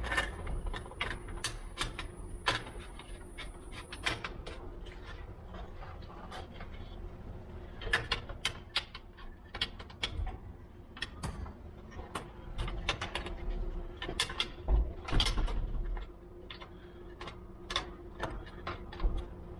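Irregular metal clicks, knocks and scraping as a flush bolt is pushed and worked into its pocket in the edge of an aluminium door, a tight fit that has to be wiggled in. A steady faint hum runs underneath, and a thin high whine sounds for the first few seconds.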